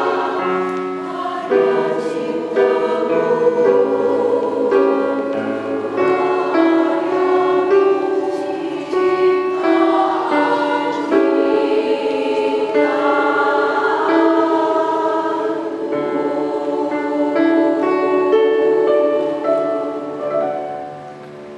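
A women's choir singing a piece in several parts. The sound fades down about twenty seconds in as the phrase ends.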